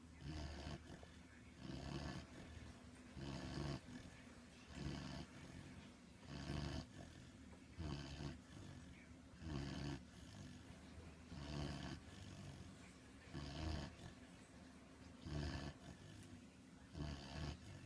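A puppy snoring in its sleep, a low snore on each breath, repeating steadily about every second and a half.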